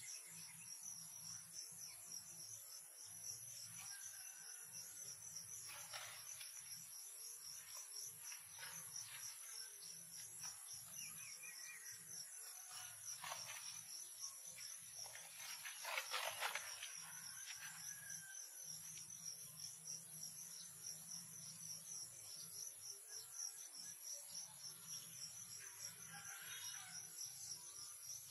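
Faint, steady chorus of insects in the grass, a rapid high pulsing trill that never lets up. About halfway through there is a brief rustle, and a few faint chirps come and go.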